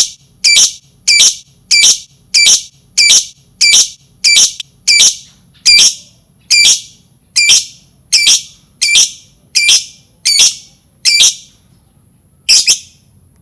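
Lovebird giving a long series of shrill, identical calls, about three every two seconds, that stops and then ends with one last call after a short pause.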